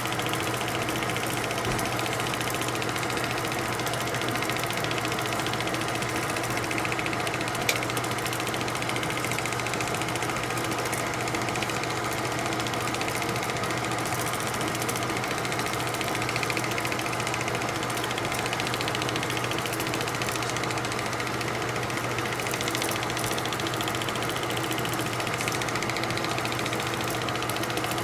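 16mm film projector running: a steady, rapid mechanical clatter of the film transport over a constant motor hum.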